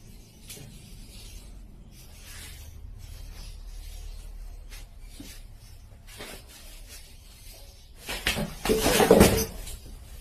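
Scattered knocks and scrapes of a wooden chair on a tiled floor over a low rumble, then a loud clattering crash about eight seconds in as the chair tips over in a fall.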